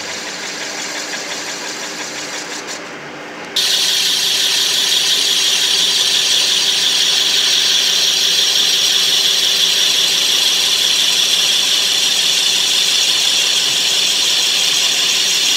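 Metal lathe turning a PTFE (Teflon) cylinder, running with a steady machine hum. About three and a half seconds in, the sound jumps to a much louder, steady high hiss that holds on.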